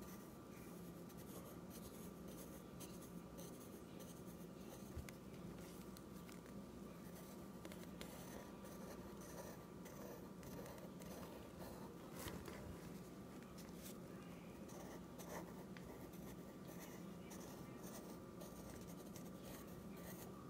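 Graphite pencil scratching on sketchbook paper in many quick, short strokes while drawing and shading, faint, over a low steady hum.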